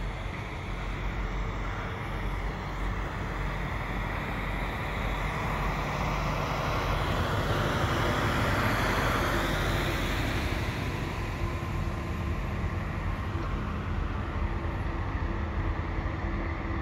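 Heavy diesel engines of a snowblower and dump trucks running steadily. A broad rush of noise swells to its loudest around the middle as a dump truck drives past close by, then eases off.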